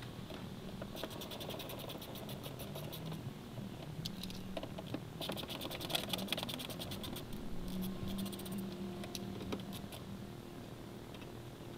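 Hand socket ratchet clicking in two quick runs as the M8 bolts under the bumper are undone.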